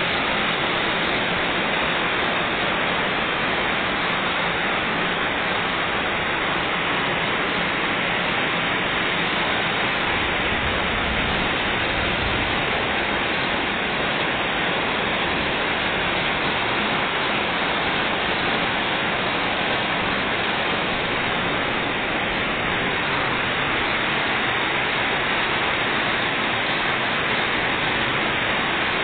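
Heavy rain pouring steadily: a constant, even hiss.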